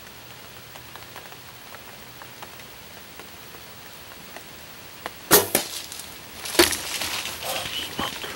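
A bow shot about five seconds in: a sharp crack with a short clatter, then a second loud knock about a second later as the bow strikes the camera tripod, followed by rustling and knocks of movement inside the ground blind. Before the shot there is only a steady faint hiss of light rain.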